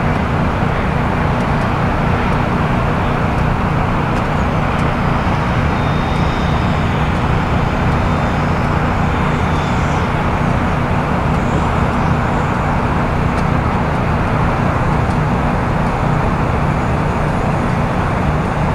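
Steady, unbroken roar of a radio-controlled model jet's turbine engine, with a faint high whine now and then.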